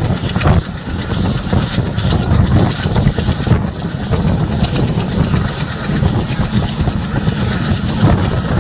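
A train running at speed, heard from on board: the WDM-3A ALCO diesel locomotive's engine chugging under a steady heavy rumble, with wheels clattering over the rails and wind rushing past.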